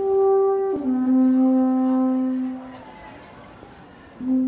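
Alphorn playing slow, held notes. A short note steps down into a long low note that fades out about two and a half seconds in. After a pause the low note sounds again near the end.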